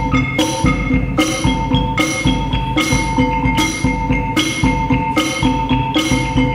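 Percussion ensemble playing a steady, repeating pattern: held ringing pitched tones under a regular bright strike about every 0.8 seconds, with a busy pulse of lower notes beneath.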